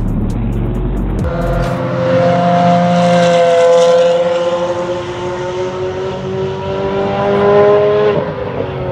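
Ferrari F430 Challenge's V8 racing engine pulling hard away along the circuit, its pitch climbing and then holding high and creeping up before it drops sharply near the end.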